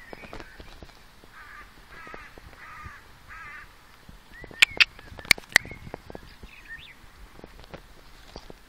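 A crow cawing four times in an even series, about two-thirds of a second apart. A few sharp knocks, the loudest sounds, come just after the middle.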